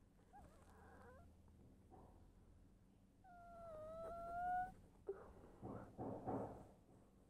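A pet animal's single long whining call about three seconds in, held near one pitch and rising slightly, followed by a few softer, rougher sounds.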